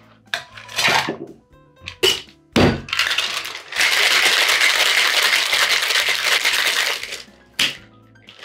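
Ice cubes clattering into a stainless steel Boston shaker tin and the tins knocked together to seal. Then the shaker is shaken hard with ice for about three seconds, a continuous metallic rattle, followed by a single knock near the end.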